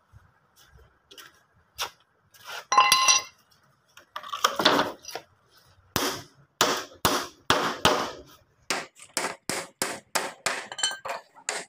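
A steel hammer driving nails through a plywood sheet into a wooden batten on a concrete floor. The sharp, even strikes come about two a second and quicken to about three a second near the end. Before the hammering there is a brief ringing metallic clatter and a scrape.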